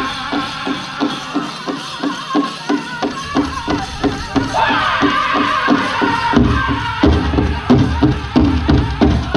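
Powwow drum group playing a chicken dance song: a fast, steady beat on the big drum, about three to four strokes a second, under high-pitched singing. About halfway through, a high singing line slides down, and about six seconds in the drumming grows louder and heavier.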